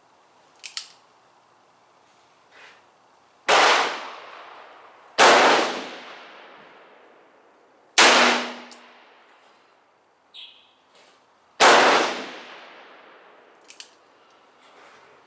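Four shots from a .44 Special single-action Bisley revolver, spaced about two to three and a half seconds apart, each followed by an echo that fades over a second or so. A few much fainter sharp cracks fall between them.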